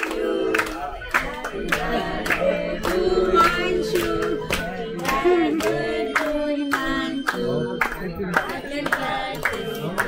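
A small group of people singing a birthday song together and clapping in time, about two claps a second.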